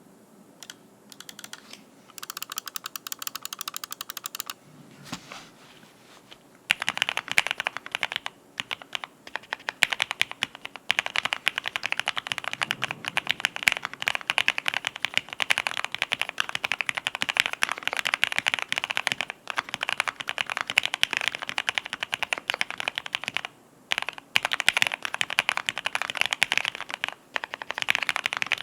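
Typing on a Monstar K80ALU aluminium-plate keyboard fitted with lubed TTC Golden Red V3 linear switches (45 g springs) and PBT keycaps. A few scattered keystrokes come first, then from about seven seconds in fast, continuous typing with short pauses.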